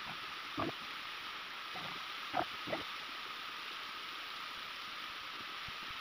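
Steady rush of a small waterfall pouring onto rocks and into a stream, with a few brief, faint knocks in the first three seconds.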